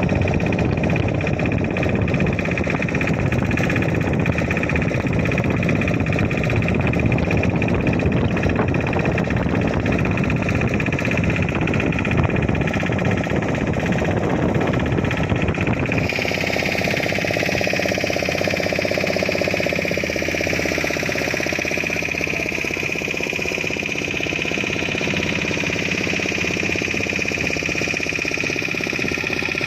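River boat's engine running steadily with a rapid chugging rattle and a steady high whine; the sound changes abruptly about halfway through.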